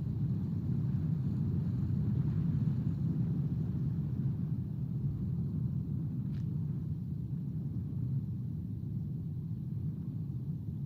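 Wind buffeting the outdoor nest-cam microphone: a steady low rumble. A brief faint high chirp comes about six seconds in.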